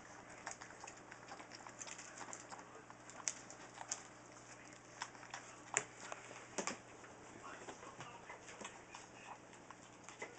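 Newfoundland puppies eating kibble from steel pans: scattered crunching and small clinks, with a few sharper knocks in the middle.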